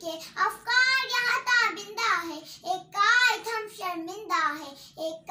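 A young girl's high-pitched voice giving an Urdu speech, her pitch rising and falling in emphatic declamation.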